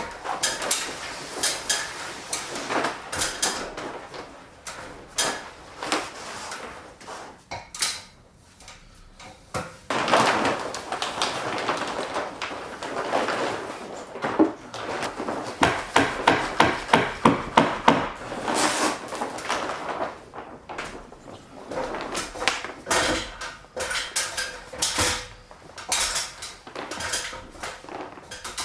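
Hammer blows on wood, coming in runs of sharp knocks with a fast series of strikes in the middle, typical of nailing boards in place.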